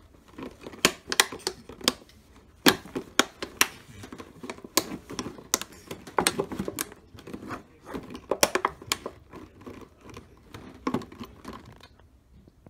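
An empty plastic drink bottle crackling and popping as a Shih Tzu bites and paws at it. There are irregular sharp cracks, several a second, which thin out near the end.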